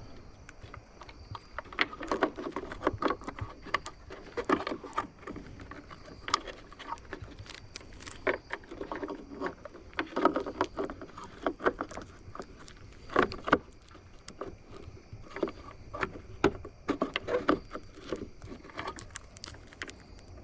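Hands working plastic light parts and wiring inside a truck's side mirror: irregular clicks, taps and rustling handling noise.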